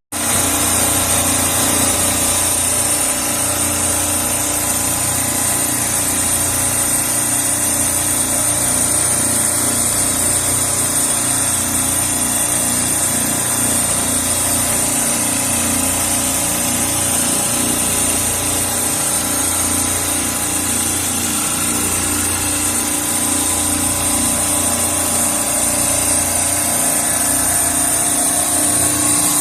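A motor-driven machine running steadily, with a constant high whine over a low, pulsing hum.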